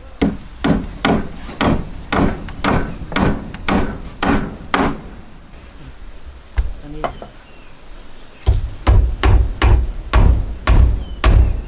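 Hammer blows, steady at about two a second, then a break with a couple of lone strikes, then a second run of heavier-sounding blows. This is hammering during the building of a wooden house railing.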